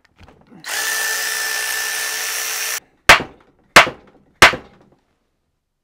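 A steady mechanical hiss with a held tone for about two seconds, then three sharp hammer blows on metal about two-thirds of a second apart, each ringing briefly. They are part of the work to free the Reliant engine's aluminium cylinder head, which has seized onto its steel studs.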